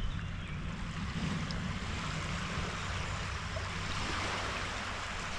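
Steady rushing wash of water with a low rumble underneath, even throughout.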